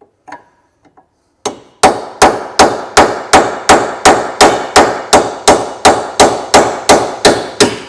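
Hammer blows on a chisel, driven between the ball joint's plate and the steel lower suspension arm to lift it off the drilled-round bolt heads. One strike about a second and a half in, then a steady run of loud, evenly spaced metallic blows, about two and a half a second, each with a short ring.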